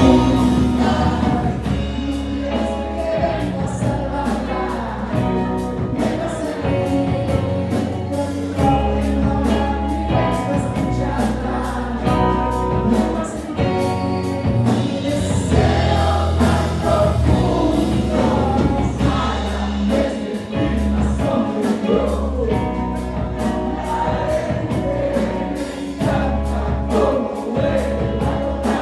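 A song: sung vocals over a steady bass line and a regular drum beat.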